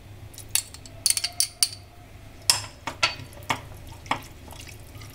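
A steel spoon clinking against glass bowls as orange liquid food colour is scraped out and stirred into candied watermelon-rind cubes in sugar syrup. About a dozen light, irregular clinks, with a quick cluster about a second in.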